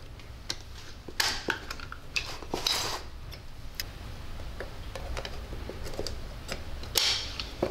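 Piston rings clicking and scraping against a piston as they are spread with ring pliers and worked into the grooves, with scattered light metallic clicks. Louder scrapes come about a second in, near three seconds, and near the end.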